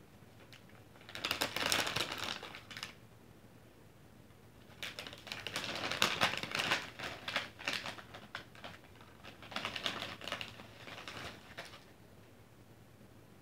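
Three bursts of rapid, dense clicking, a couple of seconds each: the first about a second in, the longest and loudest from about five to eight seconds, the last from about nine and a half to twelve seconds.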